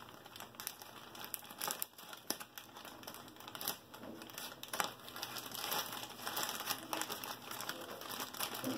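Grey plastic mailer bag crinkling and rustling as it is handled and cut open with scissors, with many sharp crackles.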